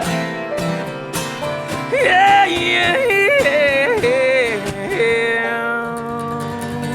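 Acoustic bluegrass band playing, with steady acoustic guitar strumming and a high, wavering wordless vocal line, yodel-like, from about two to five seconds in.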